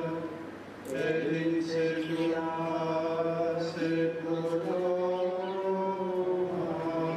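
Congregation singing a slow hymn in unison, holding long notes, with a short breath pause about a second in.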